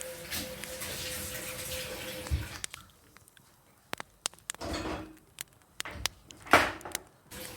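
Kitchen tap running water with a faint steady hum, turned off about two and a half seconds in. Then scattered clicks and knocks of kitchen handling, the loudest a sharp knock near the end.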